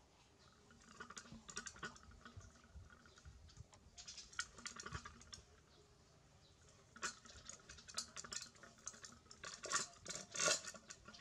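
A dog eating out of a metal cooking pot, its muzzle and teeth knocking against the pot in bursts of clinking and clicking, loudest near the end.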